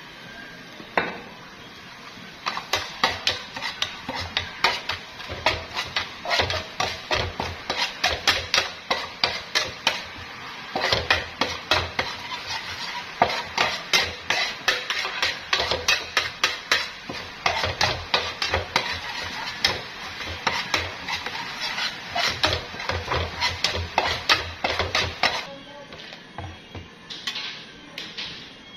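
Metal spatula scraping and knocking against a frying pan, a few strokes a second, as chopped pork is stir-fried in sauce, with frying sizzle underneath. The stirring starts a couple of seconds in and stops abruptly about 25 seconds in.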